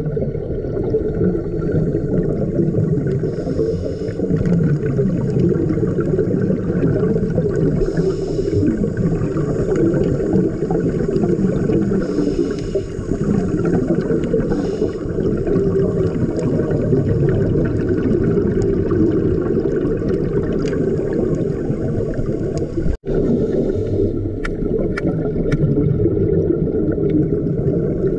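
Steady, muffled underwater rumble and gurgle of water and scuba exhaust bubbles, heard from underwater. The sound cuts out suddenly for a moment about 23 seconds in, and a few faint clicks follow.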